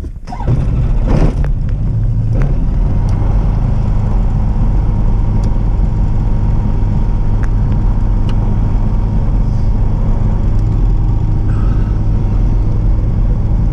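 Super Ximango motor glider's Rotax 912 engine and propeller running steadily with a low, even drone, with two brief rushing swells in the first few seconds.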